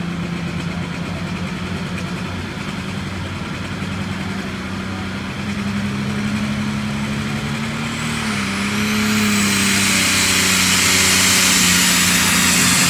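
Diesel pulling tractor's engine running steadily at the starting line, then throttling up about eight seconds in. A high whine climbs steeply and the engine grows louder as the turbocharger spools up for the pull.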